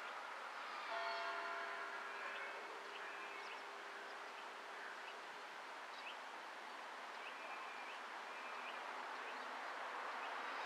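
Modified WW2-era Elektror L1/F2 combination motor siren. A chord of steady tones sounds about a second in and fades over a few seconds under a steady rushing sound, which grows louder again near the end.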